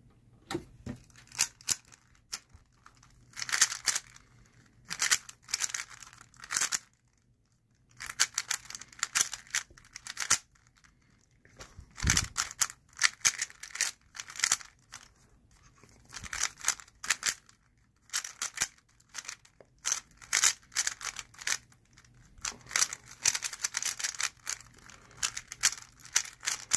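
Moyu Weilong GTS v2 speedcube being turned fast in a speed solve: rapid plastic clicking and clacking of the turning layers in quick bursts, broken by a few pauses of about a second.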